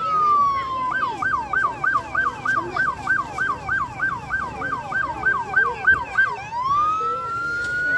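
Emergency vehicle's electronic siren. It starts as a slow wail falling in pitch, switches about a second in to a fast yelp of about three cycles a second, and slides back up into a slow wail near the end.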